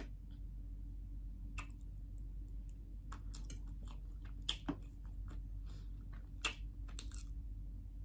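Metal fork tapping and scraping on a plastic tray as it cuts through soft sponge cake: scattered light clicks, with a few sharper ones about halfway and again later. Quieter chewing mouth sounds run between the clicks, over a steady low hum.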